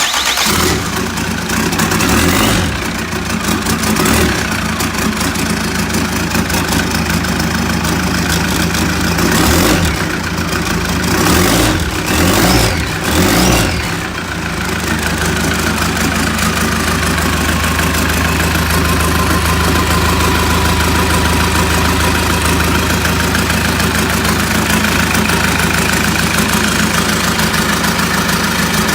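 Hyundai/Kia D4CB 2.5-litre four-cylinder common-rail turbodiesel starting, then running with revs rising and falling for about fourteen seconds before settling into a steady idle. A faint falling whine comes in about halfway through.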